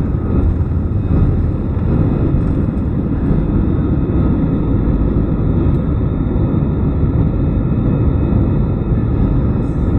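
Airliner's jet engines at takeoff thrust, heard from inside the passenger cabin as the plane lifts off the runway and climbs: a loud, steady, deep rumble.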